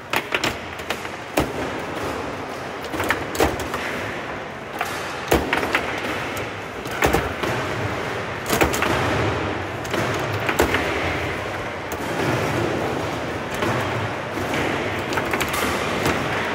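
Foosball table in play: the ball is struck and knocked about by the rod-mounted players, making sharp, irregular clicks and knocks. These sound over a steady background noise.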